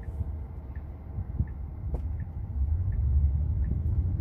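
Tyre and road rumble inside a Tesla's cabin, getting louder after about two and a half seconds as the car gathers speed. A soft tick repeats about every three-quarters of a second, typical of the turn-signal indicator, and there is one short click about halfway through.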